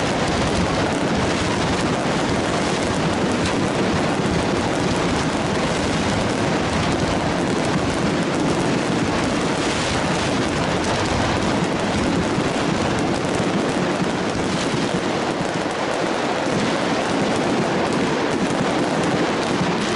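A firework barrage: many aerial shells bursting at once, their crackling and bangs running together into a dense, unbroken din.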